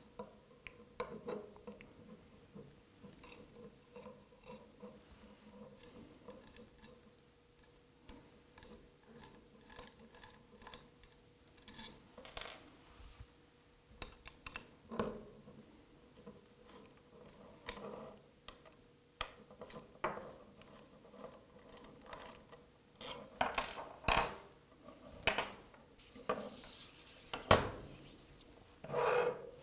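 Small metallic clicks, taps and scrapes as cap screws are backed out of the end cap of a magnetic DRO scale with a hex key and the cap is taken off, with sharper clicks toward the end. Near the end, a brief scraping hiss as the thin stainless steel strip slides out of the aluminium scale body.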